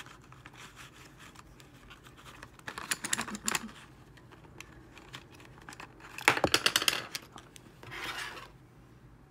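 Handling of a cardboard box of Prismacolor Premier colored pencils: scratching and clicking in a short cluster about three seconds in, and again, louder, about six seconds in, then a brief rub near the end.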